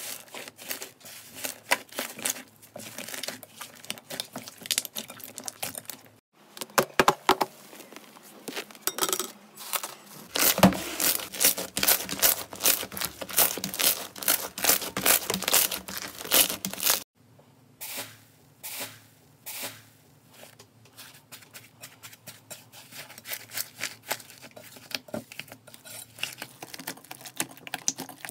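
Hands squeezing, pressing and stretching slime, with dense crackling, popping and crinkling. First comes a purple 'iceberg' slime whose thin dried crust crackles as it breaks, then two other slimes; the sound changes abruptly about six and seventeen seconds in, and the middle stretch is the loudest.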